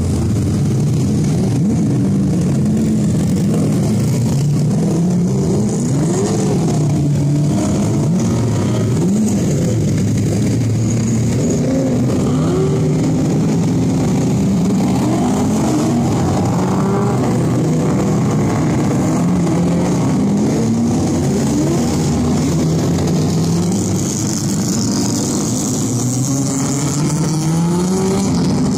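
Engines of several Group C touring cars idling and revving as the cars pull away one after another. Many overlapping engine notes rise in pitch as each car accelerates off.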